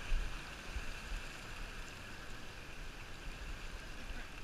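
Steady rushing wash of seawater, with no clear individual events.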